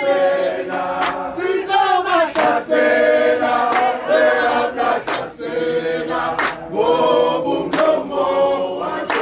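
A group of people singing together, many voices overlapping in one song.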